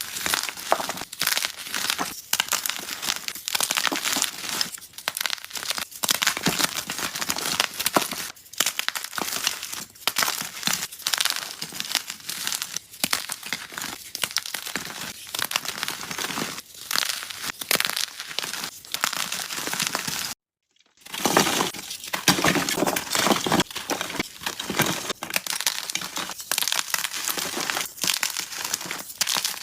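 Blocks of gym chalk being crushed and crumbling, a dense run of soft crunches and crackles. About two-thirds of the way through the sound cuts out for a moment and then resumes.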